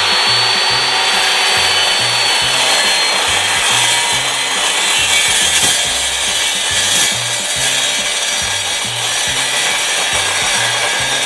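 Evolution metal-cutting chop saw cutting through the end of a steel wishbone tube in one long continuous cut. A high whine from the spinning blade holds steady, then fades after about three seconds as the blade bites into the steel.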